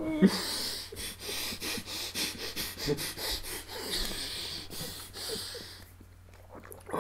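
People laughing breathlessly, almost without voice: quick wheezing, breathy pulses of laughter with an occasional voiced catch, dying away about a second before the end.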